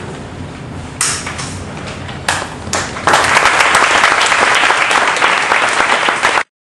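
Theatre audience applauding: a few scattered sounds first, then full applause breaking out about three seconds in, cutting off abruptly near the end.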